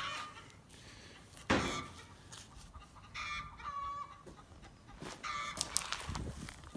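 Chickens squawking and clucking in the background, with a couple of drawn-out calls in the middle and near the end. About a second and a half in there is a single loud knock.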